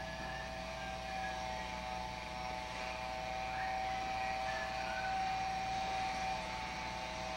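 Steady mechanical drone holding a few tones at a constant pitch, over a low steady hum.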